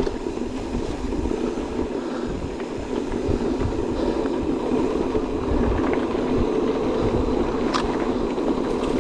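Electric mountain bike rolling along a rough trail: a steady rumble of tyres, drivetrain and wind, with a few knocks and rattles from bumps and a sharp click late on.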